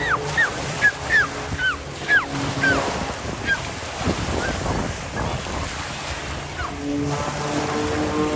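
Birds giving a quick run of short, downward-sliding calls, then a few more spaced out, over steady wind and surf noise. A steady engine drone comes in near the end.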